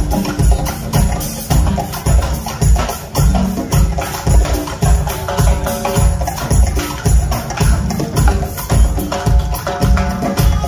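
Live percussion ensemble playing a steady driving beat on drum kit and hand drums, with a pitched melodic line running over the rhythm.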